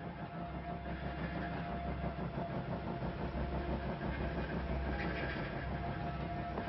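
A low, steady rumbling drone that swells in about half a second in and pulses slowly, with a faint held tone above it.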